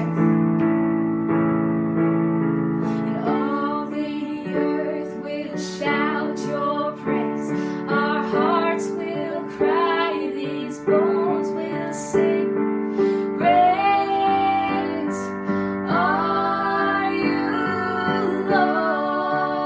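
A woman singing a slow song to piano accompaniment, with sustained chords underneath; her voice comes in about three seconds in.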